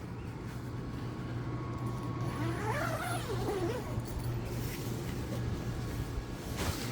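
Steady low hum of a running machine, with a short wavering, gliding whine from a pet about halfway through.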